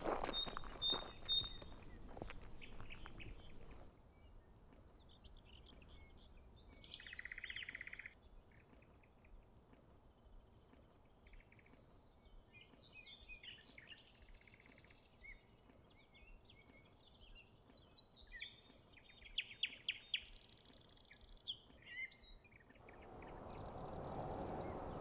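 Outdoor birdsong: scattered short chirps and calls from small birds over faint background hiss, with rustling in the first few seconds. Near the end a rush of noise swells, like a car approaching on the road.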